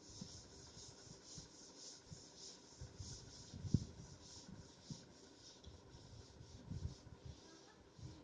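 Cloth wiping chalk off a chalkboard in quick back-and-forth strokes: a faint rhythmic swishing, about three strokes a second, with a few soft thumps.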